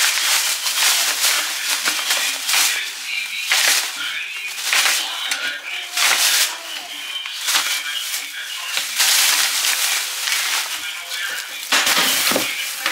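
Plastic grocery bags and food packaging rustling and crinkling irregularly as groceries are handled.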